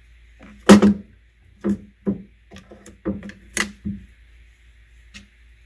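A run of about seven sharp, irregular clicks and knocks as the motor's mounting bracket and its screws are handled and fitted onto the end of a Sherline mill motor, the loudest about three-quarters of a second in.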